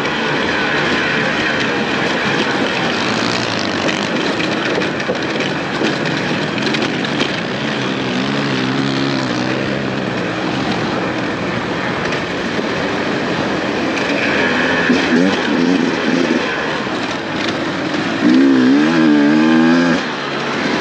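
Dirt bike engine revving up and down under riding load, over a steady rushing noise. The engine pitch swings up and down about eight seconds in and again near the end.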